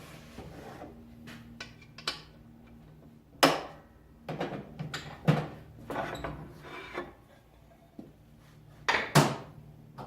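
Workshop handling sounds: a string of knocks, clunks and scrapes as tools and metal are picked up and set down, the loudest three about three and a half, five and nine seconds in, over a faint steady low hum.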